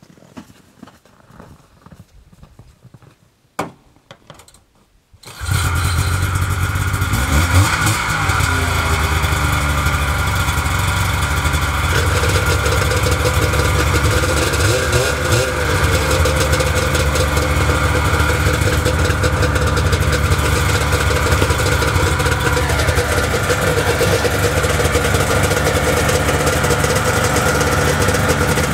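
Footsteps crunching in snow, then a vintage Ski-Doo Blizzard snowmobile's two-stroke engine catches on a single pull of the starter about five seconds in. It revs briefly and then runs steadily at idle.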